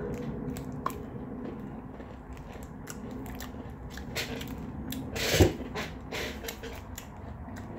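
A person biting into and chewing a lifeboat ration bar, an apple cinnamon shortbread cake, close to the microphone: a run of small crunching clicks, with one louder noise about five seconds in.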